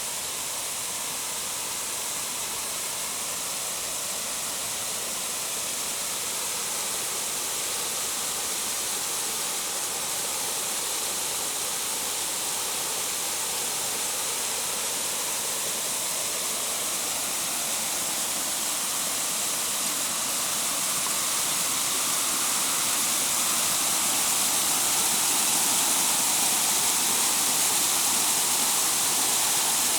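Waterfall: a steady rush of falling water, slowly growing louder.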